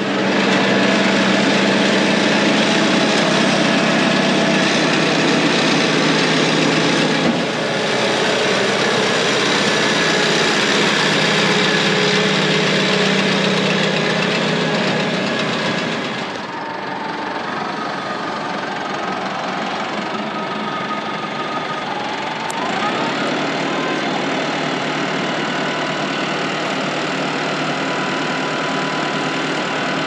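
Farm tractor diesel engines running steadily, with the engine note shifting abruptly about a quarter, halfway and three-quarters of the way through.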